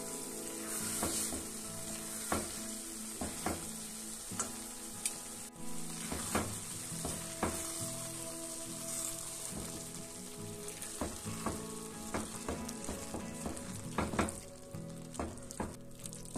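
Fusilli in a creamy tomato sauce sizzling in a hot stainless steel pan while a spatula stirs it, with irregular short scrapes and knocks of the spatula against the pan over a steady sizzle.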